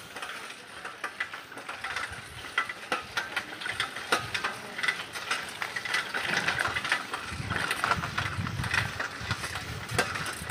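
Riding noise from a bicycle on a rough lane: a steady rush of tyre and wind noise with a run of irregular clicks and rattles. A low rumble joins it from about seven seconds in.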